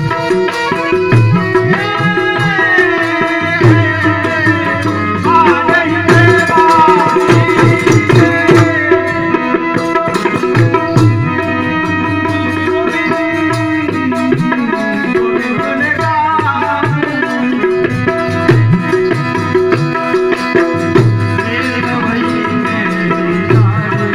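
Live Gujarati folk-devotional music: a steady drum beat under held melodic tones, with a gliding melody line that may be singing.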